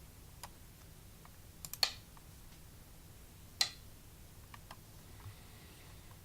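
Several sharp, short clicks a second or two apart as moves are put on a computer Go board, the loudest a pair just before two seconds in and a single one about three and a half seconds in, over a faint low hum.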